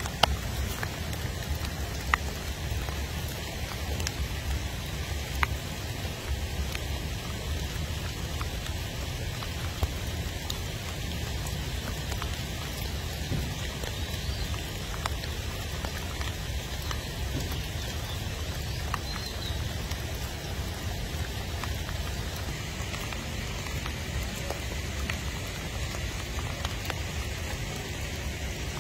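Steady outdoor noise: an even hiss with a low rumble underneath and a few sharp ticks scattered through, most in the first ten seconds.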